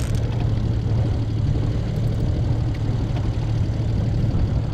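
Small outboard motor running steadily at trolling speed, a constant low hum.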